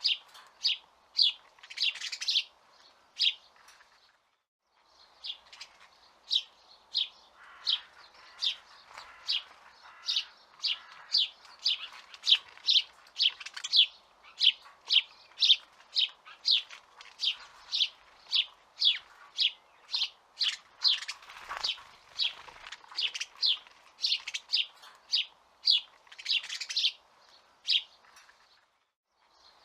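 House sparrow chirping, a long series of short, sharp cheeps at about two a second, with brief pauses about four seconds in and near the end.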